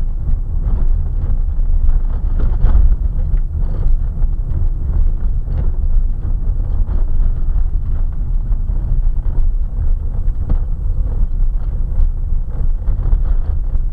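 A car rolling down a gravel road, heard inside the cabin: a steady low rumble of tyres and body, with frequent small knocks and crackles from the gravel.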